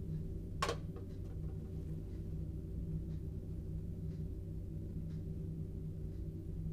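Steady low mechanical hum, with one sharp click about half a second in.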